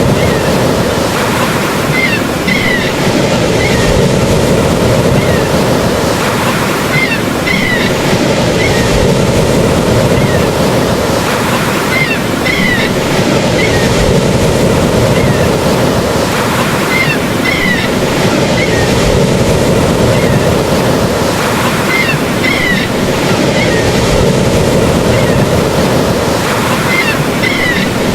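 Steady ocean surf, a continuous wash of waves, with short high chirps recurring about every five seconds.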